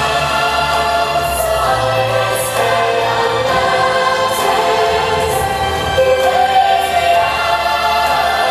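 Background music with a choir singing long held notes.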